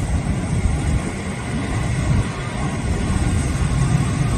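Low, steady rumble of a jet airliner's engines, wavering slightly in level.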